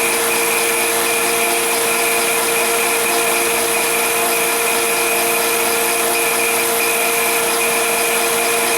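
Sears forced-air torpedo heater running steadily: an even blower rush with a constant motor hum, the heater working after a new spark plug and igniter coil were fitted.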